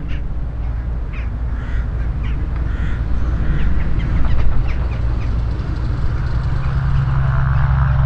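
Cessna 414A Chancellor's twin turbocharged piston engines running at taxi power, a steady low drone that grows louder near the end as the aircraft turns toward the listener. A flock of birds overhead calls in short bursts through the first half.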